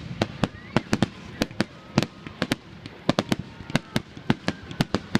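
Fireworks finale: a rapid, irregular barrage of aerial shell bangs, several a second, with faint whistles gliding between the reports.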